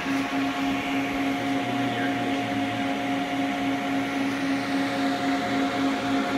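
Solbern rotary spice dispenser (volumetric cup filler) running: a steady electric motor hum with an unchanging tone.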